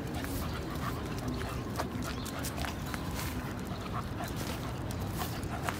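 Young pit bull dogs on leashes moving about and sniffing, over a steady low rumble with scattered light ticks.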